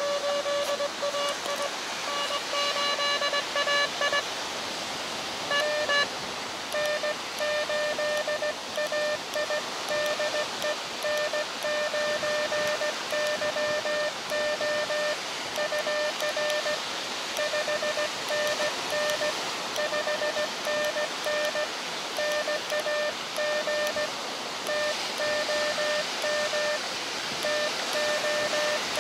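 Morse code (CW) beeps from an Elecraft KX2 transceiver. The operator's own keyed call ends about four seconds in. From about seven seconds the answering station comes back as a string of beeps sending a 5NN signal report, name and location. A steady hiss of surf and band noise lies underneath.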